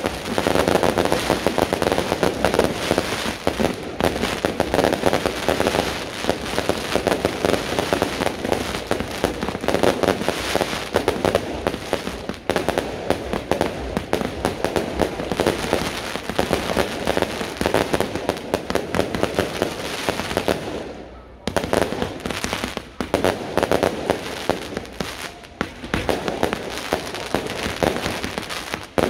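Beehive fireworks going off: a rapid, unbroken crackle and popping of bottle rockets and firecrackers, with a short lull about two-thirds of the way through.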